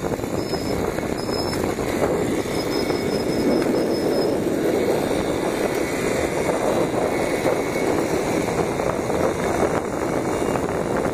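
Steady rush of a moped on the move: engine running at an even pace, mixed with wind on the microphone.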